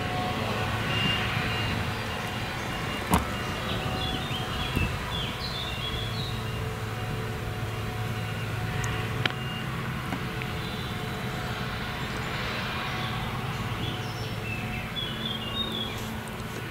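Steady low drone of a Claas Jaguar 970 forage harvester and a tractor working across the field, chopping whole-crop triticale. A few short high chirps and two sharp clicks sound over it.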